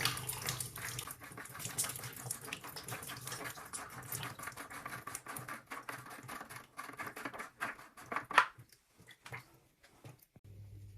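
Irregular clicks and rattles from a water heater's water-pipe fitting being taken apart by hand, with one sharper, louder click a little past eight seconds.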